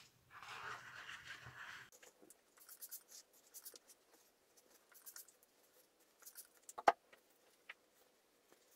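Paper towel being handled: a scratchy rasp for the first two seconds, then light crinkling and rustling. A single sharp click comes about seven seconds in, followed by a few small ticks.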